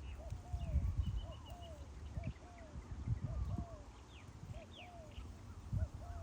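Spotted doves cooing: a steady series of short, arched coo notes about twice a second, with smaller birds chirping higher above and bursts of low rumble underneath.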